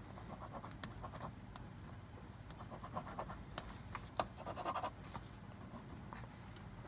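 Trayvax bullet space pen, a pressurized-ink ballpoint, scratching across oil-smeared paper in a few short spells of strokes as it is pressed hard to make it write on the grease. A single sharp tick about four seconds in is the loudest sound.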